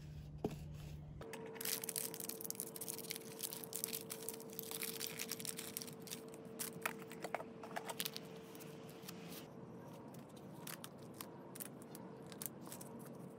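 Paper wrapping being torn open and crinkled by hand, with irregular light clicks as the small plastic wall plugs and screws inside are handled on a stone tabletop.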